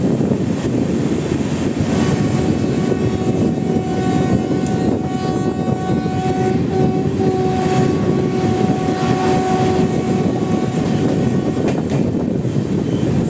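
A train horn sounds one long blast of about eight seconds, starting about two seconds in. Under it runs the steady rushing and rumbling of an LHB passenger train running at speed through a station, heard from an open coach door.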